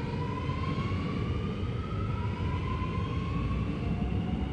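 Alstom Metropolis metro train accelerating away from the platform: its traction motors whine in a pitch that climbs, drops back and climbs again in steps, over a low rolling rumble.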